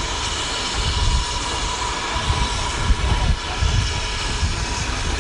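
Steam locomotive running slowly towards the platform: a steady low rumble with a hiss over it.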